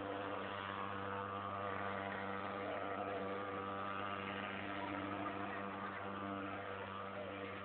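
Thermal fogging machine running with a steady engine drone as it puts out insecticide smoke, easing off slightly near the end.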